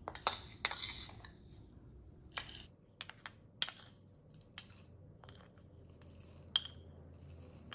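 A steel spoon clinking and scraping against a ceramic plate as roasted coriander seeds and split dal are pushed off it into a plastic mixer-grinder jar, with seeds rattling into the jar. The clicks are sharp and separate, about a dozen of them at uneven intervals.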